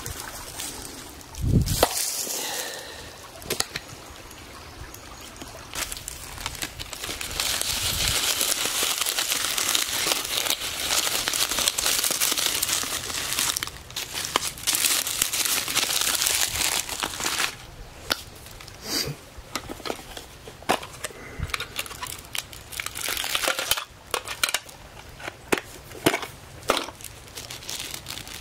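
Dry grass and dead leaves crunching and crinkling as they are handled and crushed together into a tinder bundle, with a long continuous stretch of rustling in the middle and scattered crackles later. A single heavy thump about a second and a half in.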